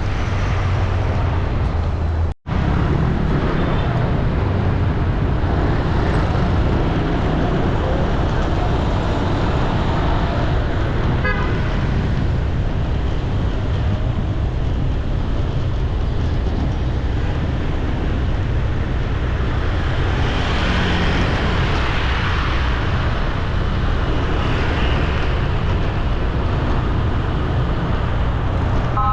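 Busy city street traffic: a steady rumble of engines and tyres, with a short vehicle horn near the end. The sound drops out for an instant about two seconds in.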